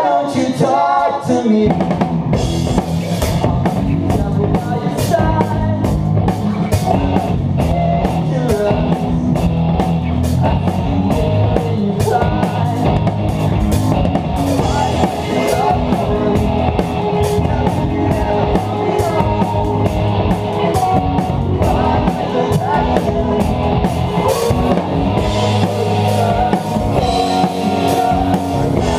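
Rock band playing live, the drum kit loud and close, with a fast, even run of cymbal strokes that eases off near the end, over sustained low notes from the rest of the band.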